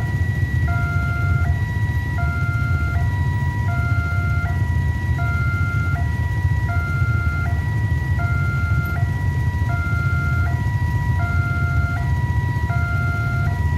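Railway level-crossing alarm sounding its electronic two-tone warning, switching between a higher and a lower note about every three-quarters of a second, the signal that a train is approaching and the crossing is closed. Under it runs a steady low rumble.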